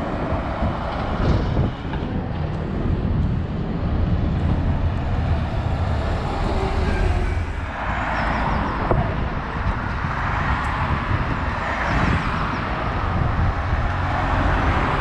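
City road traffic: buses and cars driving past close by, a steady low engine rumble with swells of tyre and road noise as vehicles pass, about eight seconds in, again around twelve seconds, and near the end. Among them are a single-deck coach and a double-decker bus.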